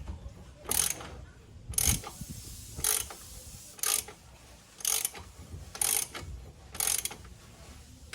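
Socket-wrench ratchet clicking in short bursts about once a second, each burst a return stroke as a 15 mm caliper bolt is worked out by hand.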